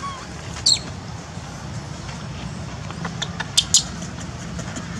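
Long-tailed macaques giving brief high-pitched shrieks: one falling squeal under a second in, then two sharp ones in quick succession about three and a half seconds in, over a steady low rumble.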